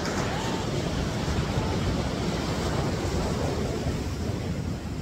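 Ocean surf rushing on the beach, with wind buffeting the microphone.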